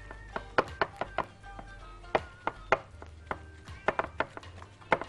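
Background music, with irregular sharp taps as gloved fingers press a layer of dough down into a glass Pyrex baking dish.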